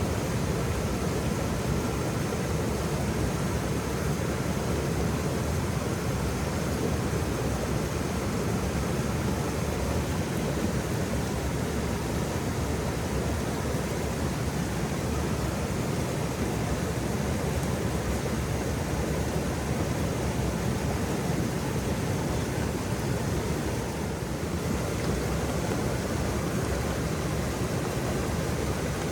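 Waterfall: a steady rush of falling water, deep and unbroken.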